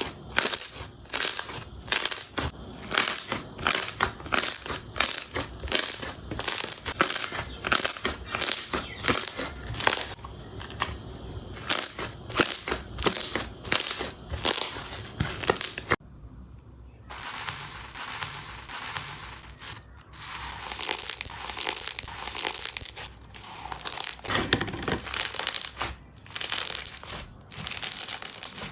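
Slime being pressed and squeezed by hand, giving a quick series of crunchy sounds, about two or three a second. A brief gap about sixteen seconds in, then the crunching picks up again.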